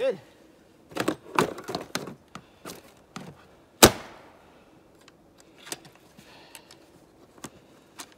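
Hard plastic toolbox being handled and closed: a run of clacks and knocks in the first couple of seconds, one loud sharp snap about four seconds in as the lid shuts, then a few light clicks from the latches.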